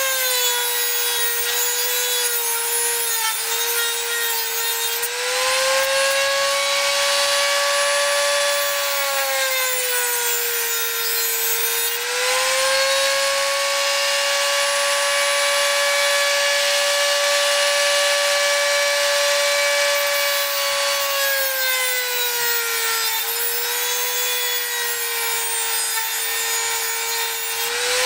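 Handheld rotary tool with a thin cut-off disc whining steadily while it grinds off the protruding ends of small metal screws, with a gritty hiss. Its pitch sags three times as the disc is pressed into the screws under load, and rises again when it runs free.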